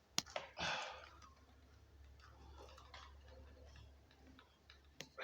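Sharp handling clicks from electrical wiring work: two quick clicks at the start, a short rustle, then a single click near the end, over a faint low hum.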